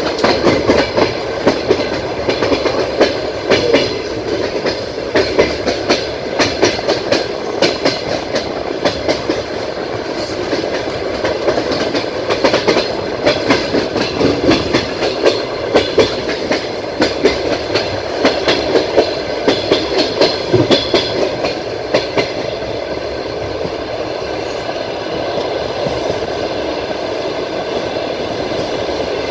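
Passenger train carriage rolling along the track with the clickety-clack of wheels over rail joints, heard from aboard. The clicks come thick and irregular for most of the stretch, then give way to a smoother, steady rumble about three-quarters of the way through.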